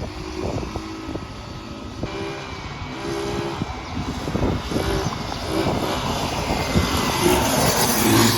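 GY6 single-cylinder four-stroke engine of a Chinese quad running and revving unevenly, getting louder toward the end.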